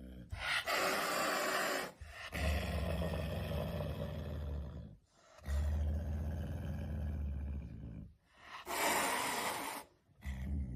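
Caracal hissing and growling in several separate bursts of one to three seconds each, some with a low rumble beneath.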